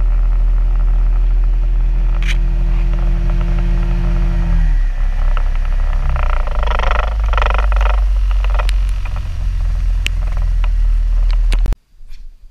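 A skiff's outboard motor running steadily under way. Its note drops about five seconds in as it throttles back. A rough rumble with clattering knocks follows, and the sound cuts off sharply near the end.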